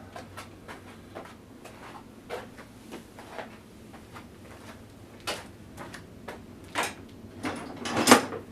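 Irregular clicks and knocks of metal lathe parts being handled and adjusted by hand, nuts and fittings being fitted and tightened. The knocks grow busier and louder near the end, with one sharp clunk the loudest.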